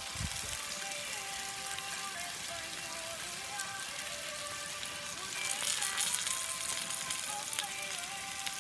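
Moose fillet steaks, new potatoes, cherry tomatoes and spring onions sizzling on a hot grill griddle plate as they are brushed with rapeseed oil. The sizzle swells louder for about a second midway.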